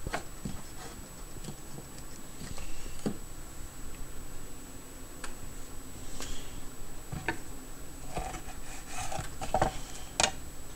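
Chef's knife and hands working raw sauger fillet pieces on a cutting board: scattered light knocks and clicks of the blade on the board, a few seconds apart, the sharpest near the end.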